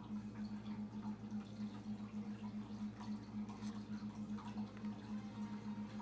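Low steady hum that pulses about seven times a second, with faint light ticks over it.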